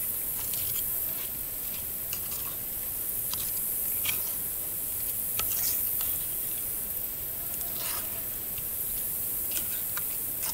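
A plastic fork stirring and scraping a wet mix of bacon and cauliflower mushroom in a small skillet, heard as irregular light clicks and scrapes over a steady high hiss.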